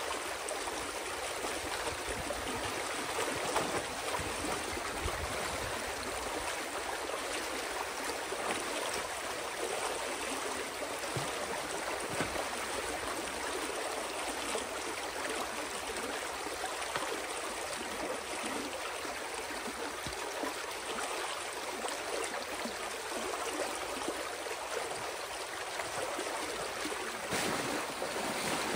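Water rushing steadily through a breach in a beaver dam as the pond drains, with a brief splash near the end.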